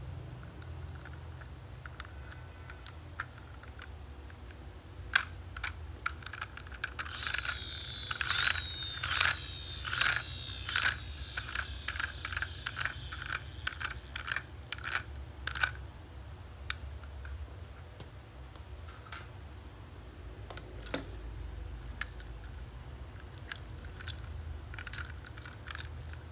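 Small hard-plastic toy vehicles clicking and clacking as they are handled and turned over, with a busy run of rapid clicks through the middle, over a low steady hum.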